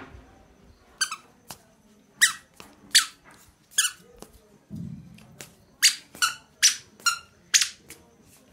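A series of short, sharp squeaks, about a dozen at irregular intervals, with a soft low thump about five seconds in.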